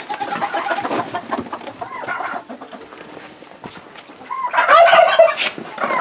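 Young laying hens clucking and calling in short pitched notes, with a louder run of calls about four and a half seconds in.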